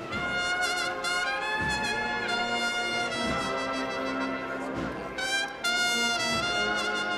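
Brass band playing a slow Holy Week procession march, in long held chords with a wavering high line over a sustained low part.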